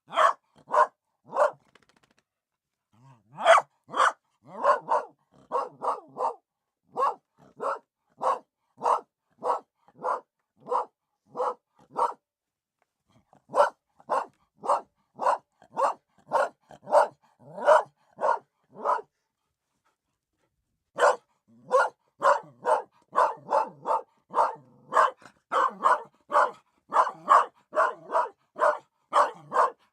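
Dogs barking in a long run of short barks, about two a second, with a brief pause after the first few and a longer pause about two-thirds of the way through. The barks come faster and closer together near the end.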